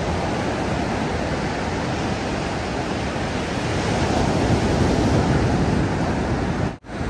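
Ocean surf breaking and washing up the beach as a steady rush, with wind on the microphone; it swells a little about four seconds in and cuts out abruptly near the end.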